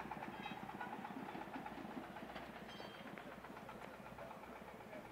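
A motor vehicle's engine running with a rapid, even chatter, growing fainter toward the end.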